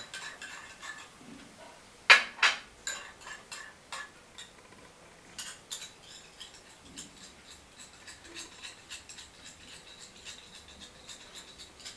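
A spoon clinking and scraping against a glass bowl while stirring thick aloe vera gel, with a few sharper clinks about two seconds in and again near the middle, and light ticks in between.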